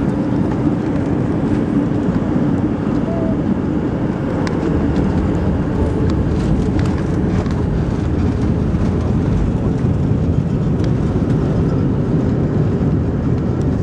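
Cabin noise of an Airbus A321 on landing: the steady rumble of its jet engines and rushing air, with light clicks and rattles from about four seconds in.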